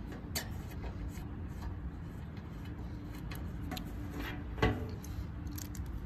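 Steady low rumble with a faint hum underneath, scattered light clicks, and one sharper knock about four and a half seconds in.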